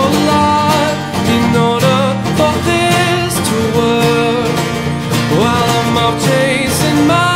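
Background music: a guitar-led, country-style song with a melody line that slides between notes.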